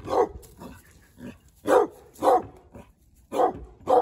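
Dog barking repeatedly: about five loud, short barks, some in quick pairs, with fainter ones between.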